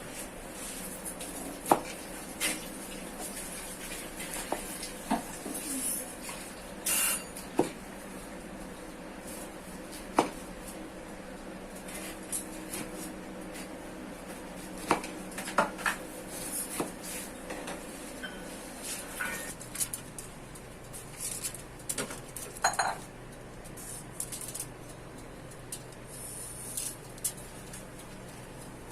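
Scattered clinks and knocks of kitchen utensils, trays and dishes being handled during food preparation, irregular and spread throughout, over a steady low hum.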